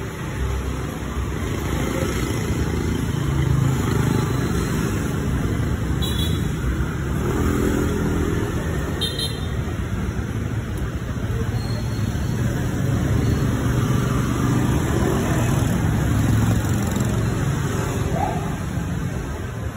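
Street traffic: a car engine running close by, with motorbike engines and road noise.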